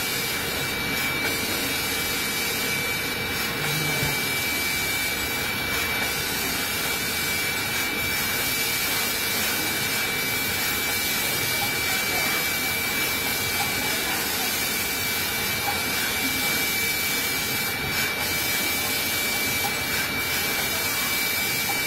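Steady running noise of a room of automatic flex-PCB tape-applying machines: an even hiss with a steady high-pitched whine running through it.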